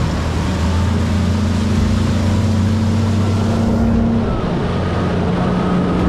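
Mercury Pro XS outboard driving a bass boat at speed, a steady run with water rushing past the hull.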